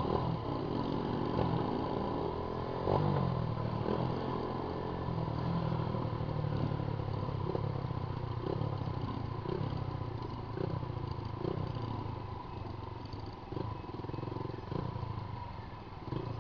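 Honda Titan 150 motorcycle's single-cylinder four-stroke engine running loud through its exhaust while being ridden, the revs rising about a second or two in and then holding steady.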